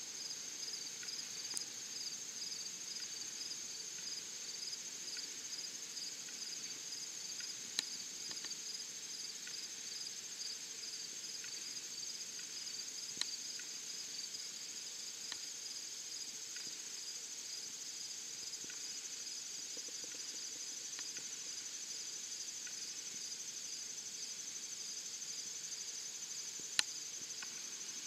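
Insects trilling: a steady high-pitched trill with a second, pulsing chirp a little lower. A few sharp clicks cut through, the loudest near the end.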